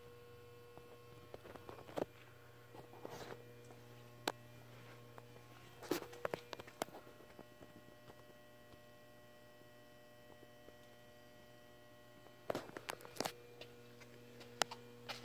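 Faint, steady electrical hum: a low drone with a few thin steady tones above it. A handful of short clicks and knocks from handling come through, most of them near the end.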